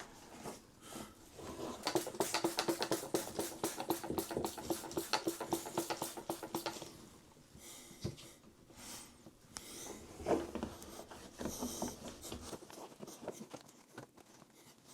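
Quick back-and-forth scrubbing inside a front-loading washing machine's soap dispenser compartment, several strokes a second, loosening soap scum. After about seven seconds the scrubbing turns slower and more scattered.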